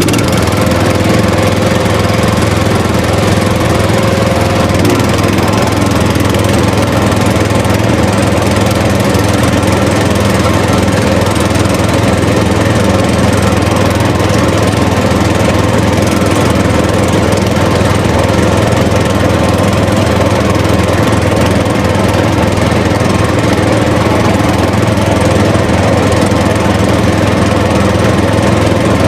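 A small motor running loudly at a constant speed, an even drone that does not change.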